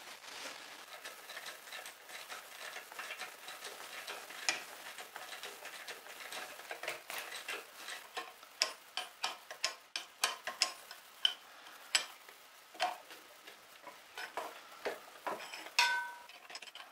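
A spanner working nuts on a Volvo Penta MD1B marine engine. Light scraping, then a run of sharp metal clicks and clinks that come thicker in the second half, with the loudest clink near the end.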